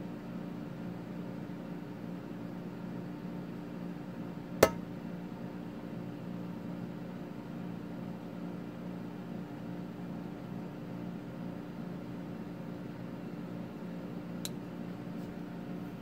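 Boker Magnum Rescue liner-lock folding knife being handled, with one sharp metallic click about four and a half seconds in and a fainter click near the end. Under it runs a steady low hum.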